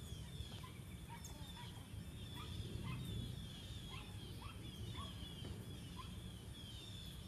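Outdoor animal calls: a steady series of short, high, falling chirps, a few a second, over a low rumble.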